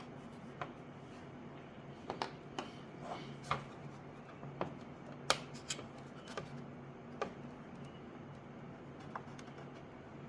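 Irregular light clicks and taps of parts and tools being handled, about fifteen in all and most frequent in the middle, over a faint steady low hum.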